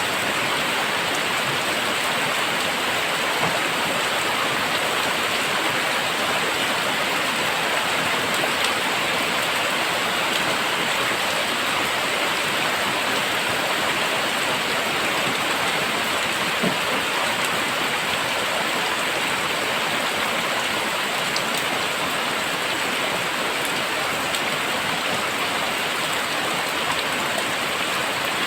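Very heavy rain falling steadily, a dense even hiss of downpour with the odd louder drop tick.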